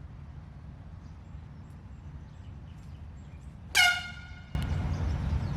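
Handheld air horn giving one short, loud, high blast about three-quarters of the way in, over a steady low rumble.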